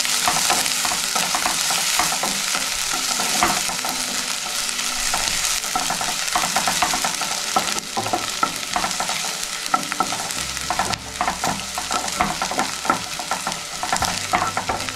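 Chopped onions sizzling in hot oil in a pan as they are sautéed, with a utensil repeatedly scraping and tapping against the pan as they are stirred.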